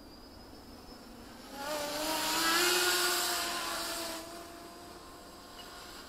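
450-size quadcopter in flight: its motor and propeller whine swells loud about a second and a half in with a rush of noise, the pitch gliding upward as the motors throttle up, then eases back after about two and a half seconds to a steady, fainter whine.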